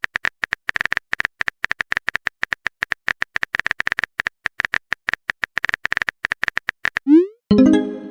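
Smartphone keyboard tap sounds clicking rapidly and irregularly as a message is typed, then about seven seconds in a short rising swoosh and a pitched chime, a message being sent and received.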